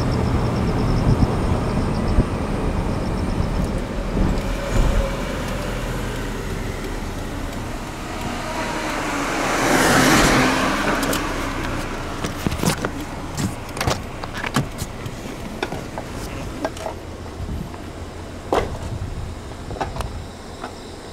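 Road traffic noise: a steady low rumble, with one vehicle swelling past about halfway through. After that it grows quieter, with scattered short clicks and knocks.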